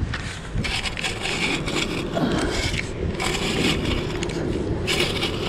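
Sand being dug and scraped at a metal detector target: about five crunching, scraping bursts, each under a second long, over a steady rumble of wind on the microphone.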